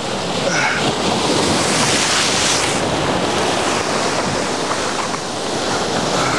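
Sea waves breaking against the jetty rocks and washing over them, with wind buffeting the microphone; the surge is loudest about two seconds in.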